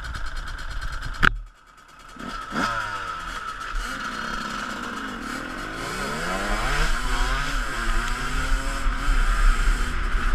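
Two-stroke dirt bike engine running and being revved, its pitch rising and falling again and again and growing louder toward the end. A sharp click comes about a second in, just before the engine sound builds.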